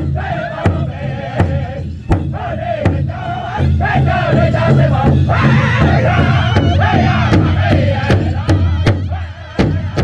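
Powwow drum group singing high-pitched in unison while several singers strike one large hide drum together with padded sticks, a steady beat about every 0.7 seconds. The singing gets louder about four seconds in.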